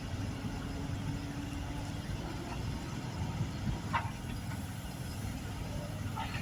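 Diesel engine of a loader running steadily at a low, even rumble, with one brief sharp click about four seconds in.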